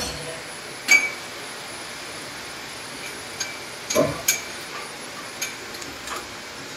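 Sharp metallic clinks and knocks of aluminium scaffold tubes, stabiliser and clamp fittings being handled and fitted. The loudest comes about a second in with a brief ring, and a quick pair follows around four seconds in, all over steady background noise.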